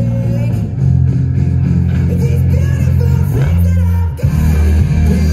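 Music: a song with guitar and a deep bass line, the soundtrack of a fireworks display.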